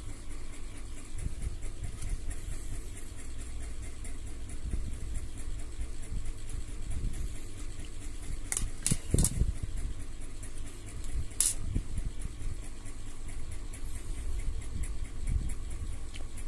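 Steady low mechanical hum, with a few sharp clicks about halfway through as small plastic kit parts are handled.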